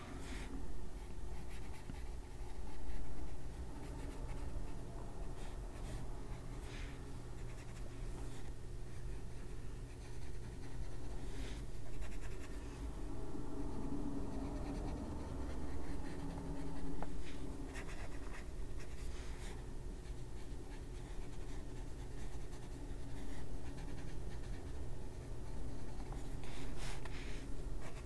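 Water brush tip stroking over coloring-book paper, a soft brushing and scratching as it wets watercolour pencil, with a few light taps.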